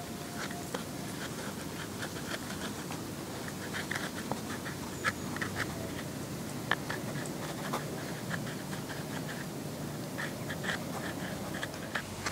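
Small scratching and clicking of a wet deer-rawhide strip being twisted and spliced by hand into a bowstring, over a steady outdoor hiss, with short high chirps now and then.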